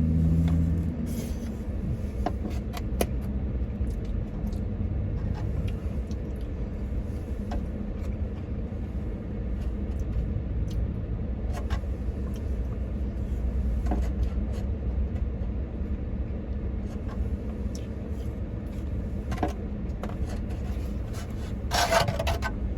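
Steady low rumble of an idling vehicle, with scattered light clicks and taps over it.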